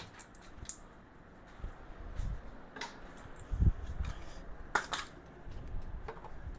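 Scattered light clinks and knocks of small metal cart parts and packaging being handled and set down, with two sharper clicks near the middle and a dull thump between them.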